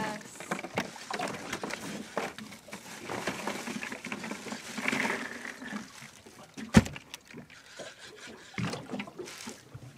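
Handling noise on a small fishing boat: irregular knocks, clicks and rustling, with one sharp, loud knock about seven seconds in.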